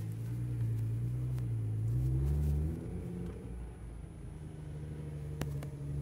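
Nissan GT-R R35's twin-turbo V6 running at low revs as the car creeps forward at walking pace. The engine note rises briefly about two seconds in, then eases back and quietens, with a single sharp click near the end.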